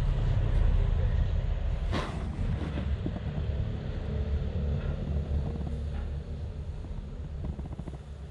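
Wind rumbling on the microphone of a camera riding on a motor scooter, with the scooter's engine running underneath. A single sharp click comes about two seconds in, and the noise eases off over the second half as the scooter slows.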